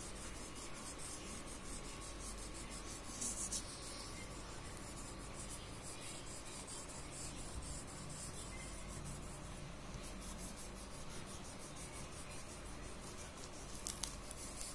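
A thick wax crayon rubbed back and forth on paper in quick colouring strokes, with a short louder stretch about three seconds in and a couple of sharp ticks near the end.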